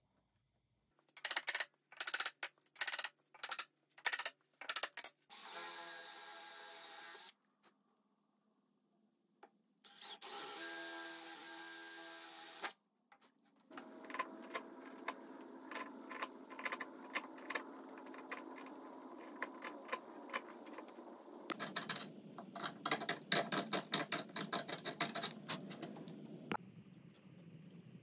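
Woodworking sounds on walnut: a string of sharp taps, then a drill boring a hole in two steady runs of about two and three seconds. After that comes a longer stretch of steady sound with rapid ticking, which gets louder and denser near the end.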